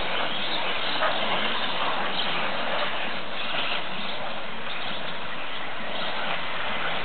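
Electric brushless 4WD RC off-road buggies running around a race track, giving a steady hiss of motors and tyres.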